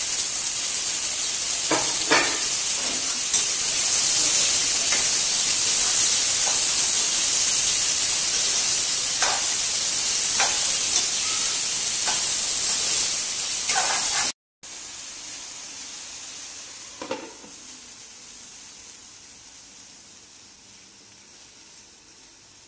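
Mutton and sliced onions sizzling as they fry in a nonstick pan, with a steel spatula scraping and tapping against the pan as they are stirred. About two-thirds of the way in the sound drops to a much quieter steady hiss from the pan cooking under a glass lid, with one light knock.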